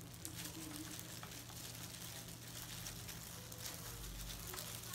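Faint crinkling of disposable plastic food-prep gloves and soft handling sounds as hands roll wet rice paper on a plastic plate, with scattered light ticks over a steady low hum.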